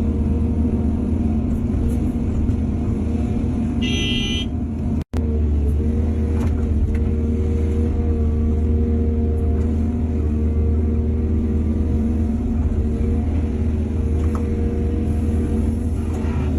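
Heavy earthmoving machine's diesel engine running steadily under load. A short high-pitched tone sounds about four seconds in, and the sound cuts out for an instant about five seconds in.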